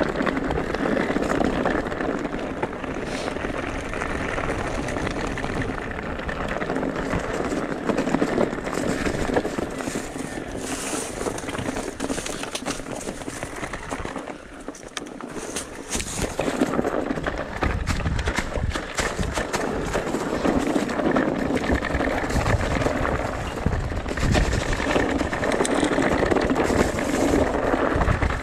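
Riding noise of an e-mountain bike on a rough trail: tyres on loose ground and a steady clatter of knocks and rattles from the bike. It is briefly quieter about halfway through.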